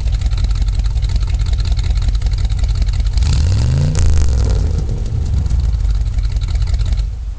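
1962 Ford Thunderbird's 390 V8 idling with a steady pulse, revved once about three seconds in, the pitch climbing and then settling back to idle.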